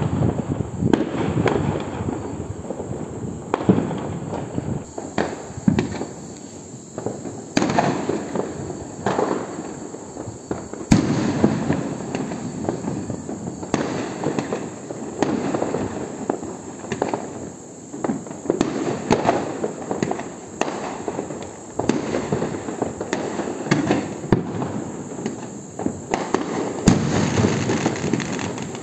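Aerial fireworks going off in a dense, continuous run of bangs and crackling, with sharper single reports scattered through it, the loudest about eleven seconds in and again near the end.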